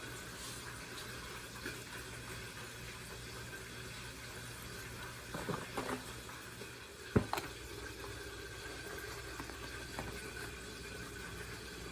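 Quiet steady hum and hiss, with a few light clicks and knocks and one sharp knock about seven seconds in.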